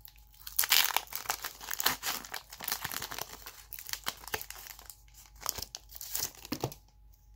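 Foil trading-card booster pack being torn open and its wrapper crinkled by hand: a dense crackling and tearing, loudest about a second in, that dies away near the end.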